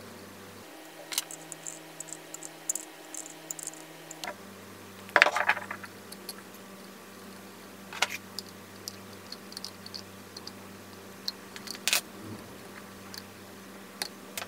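Small metallic clicks and taps as crimped wire terminals are handled and fitted onto the brass terminal block of an electric motor, with a louder rattling cluster about five seconds in and sharp ticks near eight and twelve seconds.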